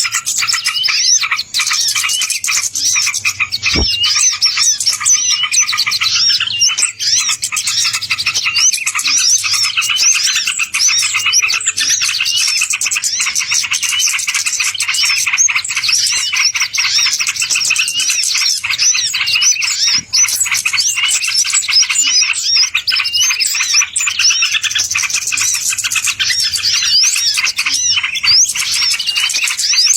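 Many small birds chirping busily and without pause, quick high notes overlapping one another, as in a bird-lure recording played to draw wild birds in.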